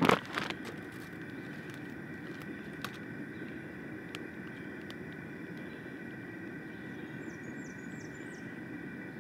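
A plastic poultry shrink bag crinkles loudly and briefly at the start as it is twisted shut around the bird, with a second smaller rustle just after, then a few faint ticks from handling the zip tie. A steady background hum runs underneath, and four short high chirps come near the end.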